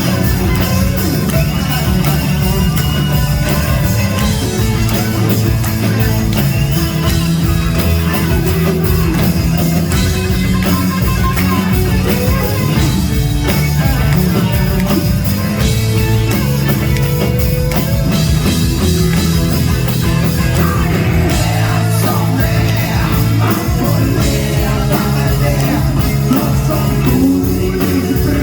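Live rock band playing loudly, with electric guitar, bass and drums driving a steady beat and a male singer's voice at times.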